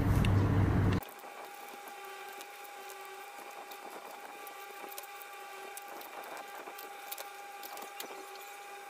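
Utility knife cutting and trimming a styrofoam nose piece, heard as faint scattered clicks and scrapes over faint steady tones. A loud rumble at the start cuts off suddenly about a second in.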